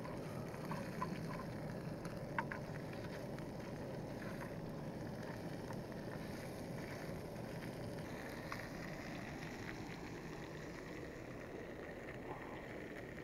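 Gas-canister camping stove burning under a metal mess tin of frying bacon: a steady rushing noise, with a few light clicks of a fork against the tin in the first few seconds.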